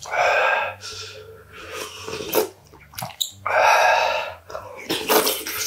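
Two long, loud slurps of spicy ramen broth from a wooden spoon, one at the start and one about three and a half seconds in, with small mouth and spoon clicks between.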